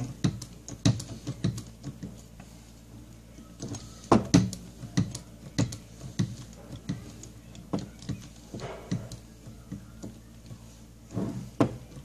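10-ton hydraulic crimping tool being pumped to crimp a lug onto a cable: a series of irregular mechanical clicks and knocks from the pump handle and dies. The loudest knocks come about four seconds in and near the end.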